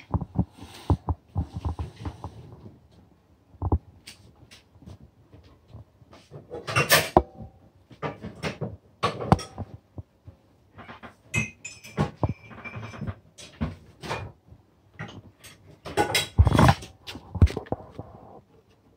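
Kitchen handling sounds: a metal spoon clinking against a glass mixing bowl and containers being knocked and set down on a steel worktop, as scattered clicks and knocks with a few louder rustling bursts.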